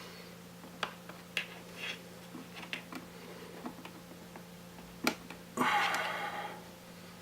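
Scattered small clicks and taps of hands and tools handling the internal parts of an opened iMac, with a sharper click about five seconds in followed by a short scraping rustle.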